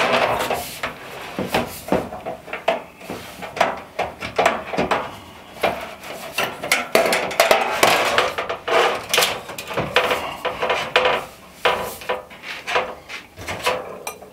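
A wrench clinking and knocking against a stainless steel sink while its water supply hose fitting is tightened: many irregular metal clicks and taps.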